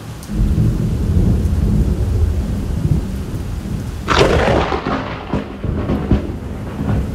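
Thunder in a rainstorm: a deep rumble starts just after the beginning, and a sharp crack comes about four seconds in before the rumble carries on. Steady rain hisses underneath.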